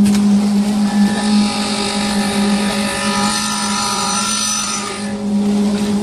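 Mobile concrete mixer pump running steadily as it pumps concrete through the hose, a constant machine drone with a steady hum.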